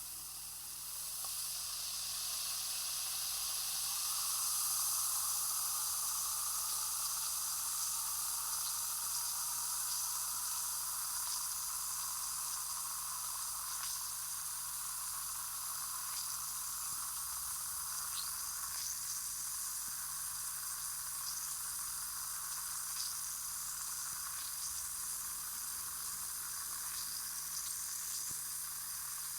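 Effervescent aspirin tablet fizzing in water: a steady high hiss of bubbles with scattered tiny pops. It swells a few seconds in, then holds steady.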